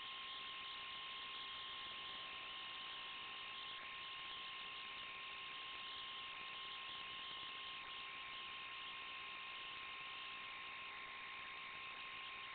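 Steady static hiss with a constant high whine, the electronic noise of an analog FPV video link's audio channel; nothing rises or falls with the truck's throttle.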